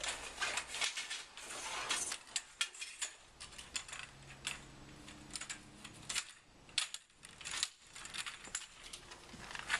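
Folding-kayak frame pieces clinking and clattering as they are handled and set down: a rapid, irregular run of light clicks and knocks, with some rustling over the first two seconds.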